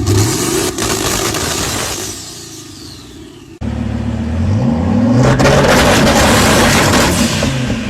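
American muscle car engine accelerating hard, its pitch rising, then fading away with a falling tone. After an abrupt cut about three and a half seconds in, another engine revs up with rising pitch.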